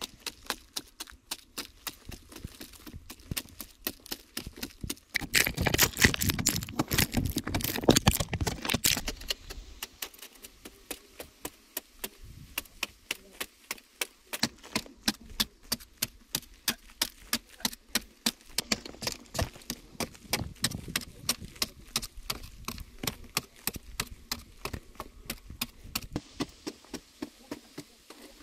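A hand digging tool chopping repeatedly into hard, dry clay soil, about three strokes a second, with a louder, rougher stretch of digging and loosened soil for a few seconds early in the second quarter.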